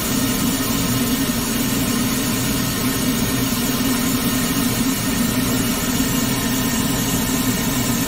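Pink noise test signal played through a car audio system tuned with a Pioneer DEQ-S1000A processor: a steady, even hiss across all pitches, heaviest in the low mids. It is the measuring signal for a real-time analyser check of the system's frequency response after tuning.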